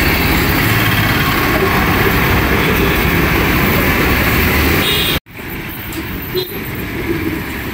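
Roadside traffic noise: a loud, steady rumble of passing vehicles that breaks off abruptly about five seconds in and comes back quieter.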